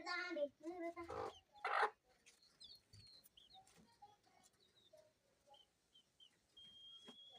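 Chickens clucking, loudest in the first two seconds as a few pitched calls, then fading to faint high peeps.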